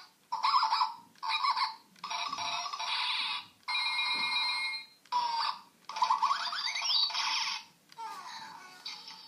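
Zhu Zhu Puppies Sabrina toy playing a string of short recorded electronic sound clips through its small built-in speaker, about seven in a row with brief gaps. One clip about seven seconds in has a rising, whistle-like glide.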